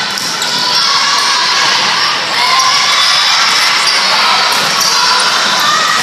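Volleyball rally in a gym: the ball struck on a pass and a set, sneakers squeaking on the court, over a steady din of voices and shouts from players and spectators.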